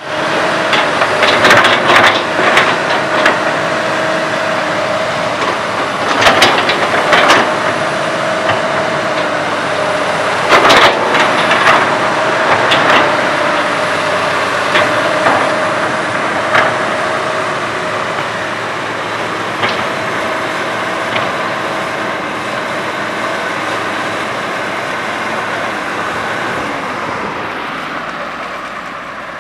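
Komatsu PC200 hydraulic excavator's diesel engine running steadily under load, with sharp metallic clanks and knocks of the machine working, most of them in the first half. The sound eases off somewhat toward the end.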